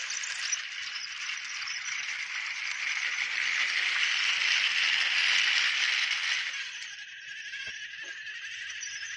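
TrackMaster battery toy train running on plastic track: a steady motor whir with wheels and coaches rattling. It grows louder as the train passes close, then drops off about seven seconds in, with two light clicks near the end.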